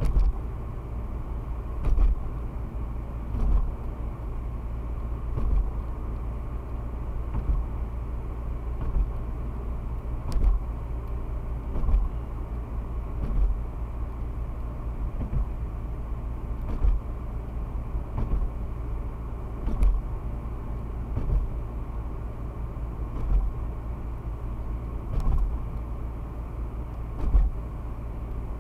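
Steady low rumble of a car's engine and tyres heard from inside the cabin. A short thump comes about every one and a half to two seconds as the tyres cross joints in the bridge deck.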